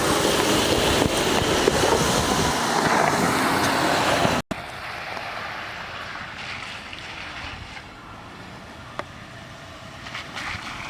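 A vehicle driving off-road, with heavy wind noise on the microphone over the running noise. About four and a half seconds in, the sound cuts off abruptly to a much quieter, steady vehicle noise, with a single faint click later on.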